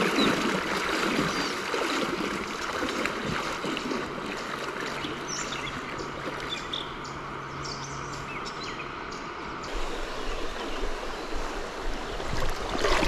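Creek water running over rocks, with splashing from a person wading through knee-deep water in chest waders, loudest in the first few seconds.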